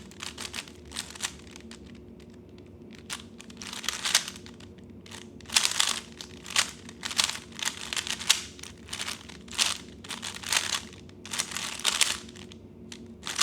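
A 3x3 speed cube being turned fast during a timed solve: bursts of quick plastic clicking and clacking, grouped into runs of moves with short pauses between them.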